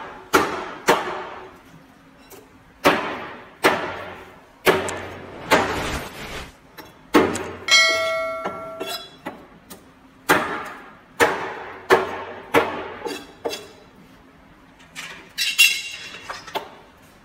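A heavy knife chopping through raw fish onto a plastic cutting board: about a dozen sharp, irregularly spaced chops, each with a short echo off the tiled walls. A brief metallic ring sounds about eight seconds in.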